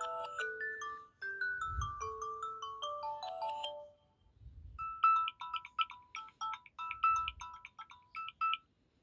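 Samsung Galaxy A02 ringtones playing. A stepping chime-like melody ends about four seconds in, and after a short pause a different ringtone of quick repeated high notes follows.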